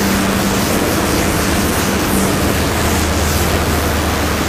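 Felt board duster rubbing across a chalkboard, a steady scrubbing hiss as the board is wiped clean.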